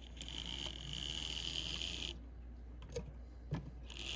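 Pancake motor and gears of an HO-scale Ibertren Talgo model locomotive running with a steady whirring hum, freshly oiled and running smoothly. It stops about two seconds in, two sharp clicks follow, and it starts running again near the end.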